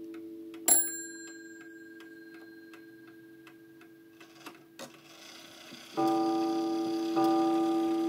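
Sessions mantle clock ticking steadily. About a second in, its half-hour bell rings once with a bright, high ping. From about six seconds in, its coiled gong starts striking the hour, two strokes a little over a second apart, set off as the minute hand is pushed forward by hand.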